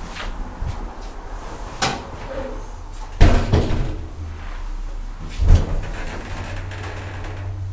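Elevator doors knocking and thudding shut, three impacts with the middle one loudest, followed by a low steady hum setting in near the end.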